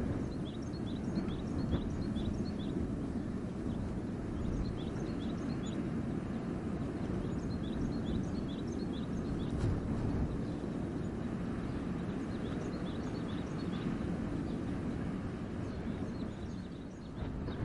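Wind blowing steadily through a winter forest, a constant low rush, with small birds giving many short, high chirps throughout.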